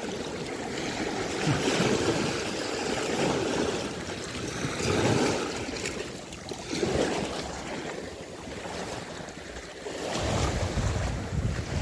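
Sea water washing and surging in swells every couple of seconds.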